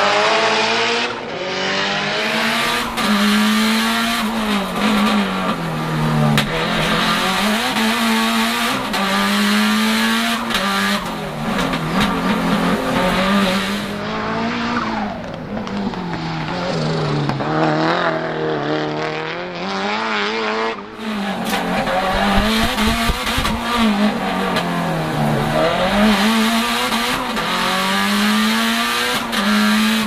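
Turbocharged 2.0-litre four-cylinder engine of a 500 hp modified Lancia Delta Integrale Evoluzione, heard from inside the cabin under hard track driving. The note rises and drops in pitch over and over as the car accelerates and lifts off for corners.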